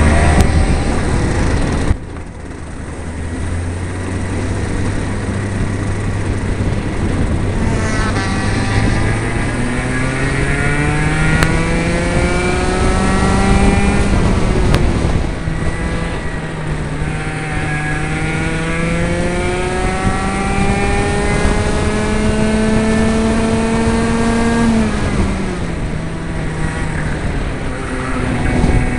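60cc Mini kart two-stroke engine heard onboard at speed. Its pitch climbs steadily as the kart accelerates, drops sharply about two-thirds of the way through where the driver lifts for a corner, climbs again for a long stretch, and drops once more before rising again near the end.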